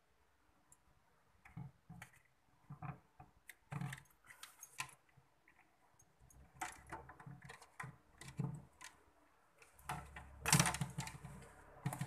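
Irregular small clicks, taps and rattles of hands working a refrigerator's wiring and plastic connectors while a bimetal defrost thermostat is swapped out. A louder cluster of knocks comes near the end.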